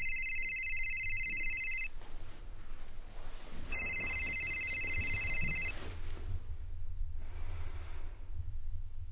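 Mobile phone ringing with a trilling, high-pitched ring tone: two rings of about two seconds each, one at the start and one about four seconds in.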